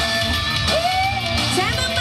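Live dangdut band music with guitar, and a woman singing into a handheld microphone; her voice glides into a long held note about halfway through and starts a new rising phrase near the end.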